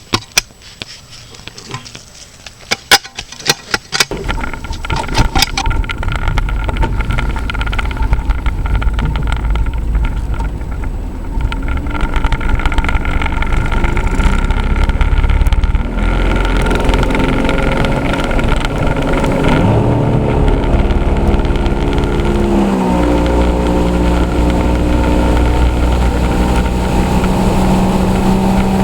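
A few sharp clicks and knocks, then about four seconds in an engine starts running under way and keeps going steadily. Its pitch dips and shifts a little past the middle, as with a throttle change.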